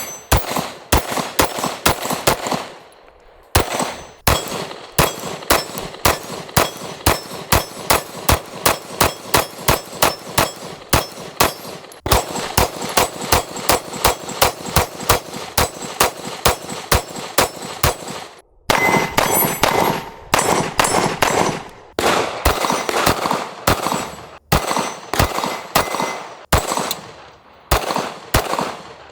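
Springfield Armory Prodigy Compact 9mm pistol firing in long strings of rapid shots, about two a second, with brief pauses between strings.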